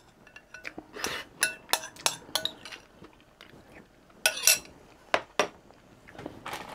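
Metal spoon clinking and scraping against a glass bowl of noodles in broth, a dozen or so sharp ringing clinks, with a couple of short slurps of noodles from the spoon.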